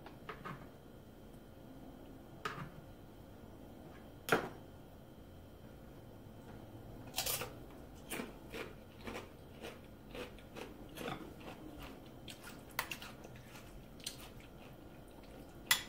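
Scattered knocks of a kitchen knife on a plastic cutting board while jalapeño slices are chopped, then a run of light clicks and a spoon knocking against a ceramic bowl as guacamole is stirred near the end.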